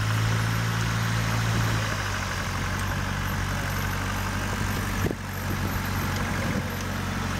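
Land Rover Defender engine running at low, steady revs as the truck crawls over a steep dirt slope; the note is a little louder for the first two seconds and drops out briefly with a click about five seconds in.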